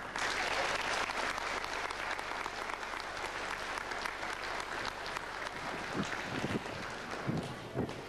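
Audience applauding, thinning out near the end, with a few low bumps in the last couple of seconds.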